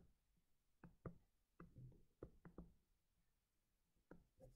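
Near silence with about ten faint taps and ticks of a stylus pen on a touchscreen as a word is handwritten, scattered unevenly with a gap in the middle.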